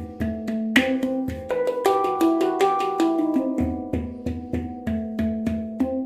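Steel handpan tuned to an E Romanian Hijaz scale, played by hand: quick, rhythmic strikes on the tone fields, several a second, mixed with sharper taps, each note ringing on and overlapping the next.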